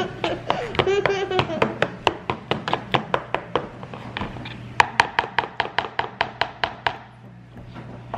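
Plastic potato masher knocking against the bottom of a bowl as it mashes bananas with egg and maple syrup. Quick, even knocks come about five a second and stop about seven seconds in.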